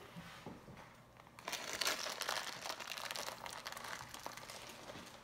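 Plastic candy wrappers crinkling as they are handled, starting about one and a half seconds in and going on in a busy, crackly rustle until near the end.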